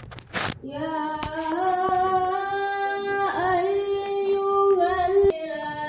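A woman chanting a Qur'an recitation (tilawah) in long, held, ornamented notes, starting about a second in after a brief rustle.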